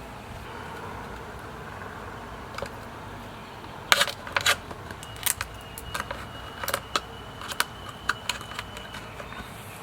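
A run of sharp, irregular clicks and taps from small hard objects being handled, starting about four seconds in, over a steady low background hum.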